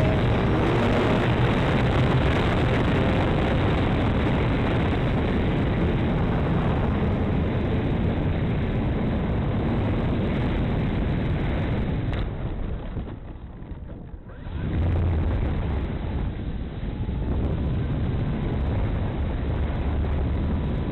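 Wind rushing over the microphone together with the drone of the Dynam P-51 RC plane's electric motor and propeller. It drops away sharply for a couple of seconds about twelve seconds in, then comes back just as loud.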